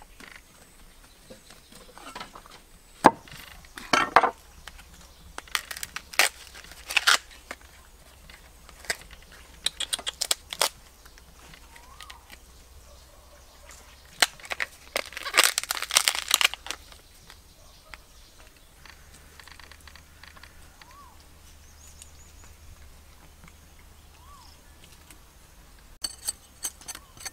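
Irregular crunching, crackling and sharp knocks of food or cooking gear being handled, with a dense run of crunching about halfway through and a few quick clicks near the end.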